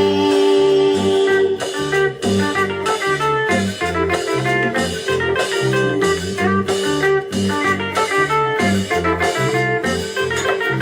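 Instrumental break of a cumbia song, with no singing: a quick plucked melody over a steady bass and drum beat, and a long held note underneath.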